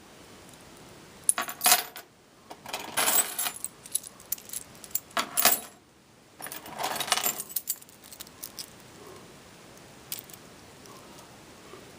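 A bunch of tryout keys on a ring jangling and clinking in several short bursts as the keys are leafed through one after another and tried in a warded padlock.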